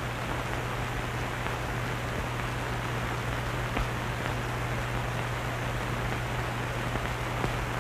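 Steady hiss with a low hum from an old film soundtrack, with a few faint clicks.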